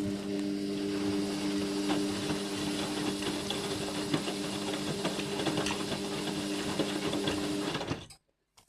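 Indesit MTWC71252WUK washing machine in the first rinse of its mixed programme: a steady electrical hum with water rushing and small clicks, cutting off suddenly about eight seconds in.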